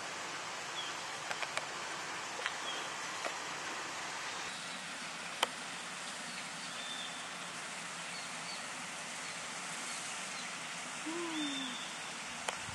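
Riverside ambience: a steady rushing hiss of running water with a few short, high bird chirps scattered through it and some faint clicks.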